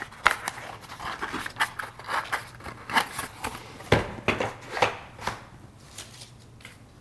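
Cardboard packaging being handled: an irregular run of sharp clicks, taps and scrapes, the loudest about four seconds in, dying away in the last second or so.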